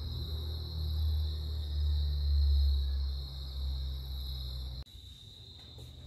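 Crickets trilling steadily over a low rumble. The rumble drops away suddenly about five seconds in, while the trilling goes on.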